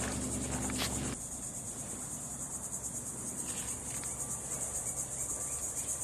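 A chorus of insects, such as crickets, chirring: a steady, high-pitched trill with a fast pulse.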